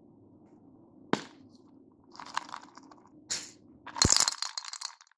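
A green grape-shaped plastic candy bottle: a sharp click about a second in as it is opened, then crackly rattling as small white tablet candies are shaken out. They clatter into a glass bowl, loudest just after four seconds in.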